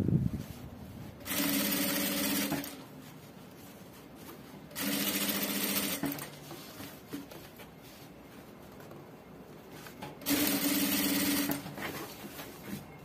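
Industrial sewing machine stitching bias binding onto a skirt edge in three short runs of about a second each, stopping between them while the fabric is repositioned by hand.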